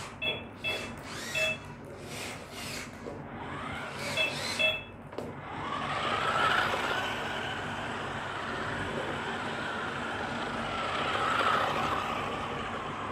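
A few short electronic beeps, then the electric drive motors of a 4WD RC twisting stunt car whining steadily as it drives. The whine rises in pitch about six seconds in and swells again near the end.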